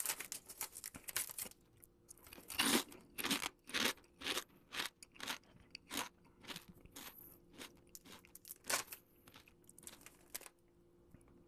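Person chewing a mouthful of Lay's potato chips: a run of irregular crisp crunches, loudest a few seconds in and again near the end, then thinning out as the chips are chewed down.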